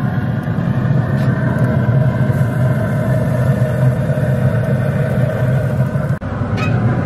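Pit Boss pellet grill running with a steady low hum from its fan and fire.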